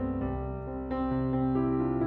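Background classical piano music, slow, with a new note or chord struck about every two-thirds of a second.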